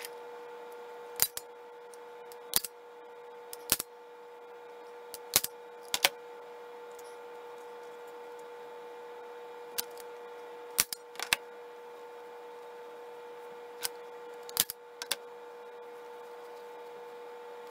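Hand staple gun firing staples through a rabbit hide into a taxidermy form: about a dozen sharp snaps at irregular intervals, several coming in quick pairs.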